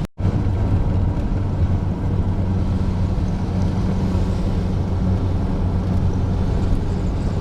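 Volkswagen Vanagon driving on the highway: a steady, even engine drone with road and wind noise, heard from inside the van. The sound drops out for a split second right at the start, where the recording cuts.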